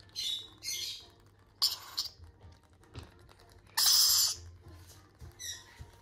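Rainbow lorikeet chicks giving harsh, raspy begging calls while being spoon-fed: about five short bursts, the loudest and longest about four seconds in.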